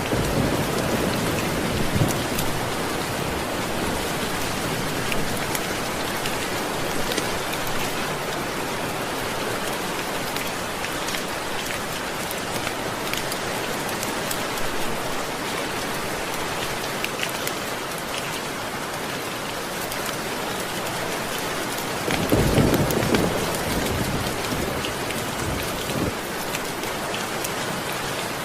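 Steady heavy rain, with low rolls of thunder rumbling at the start and again about three-quarters of the way through, the later one the loudest.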